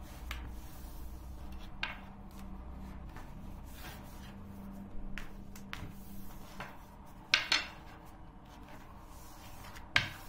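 Long thin wooden rolling pin (oklava) being rolled back and forth over a sheet of dough wound around it on a floured table, a soft rubbing with scattered sharp knocks of the pin against the table, the loudest about seven seconds in and again near the end.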